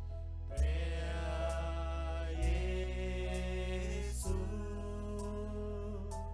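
Worship song played live: an electric keyboard holds sustained chords over a deep bass, changing chord about every two seconds, while singers hold long notes.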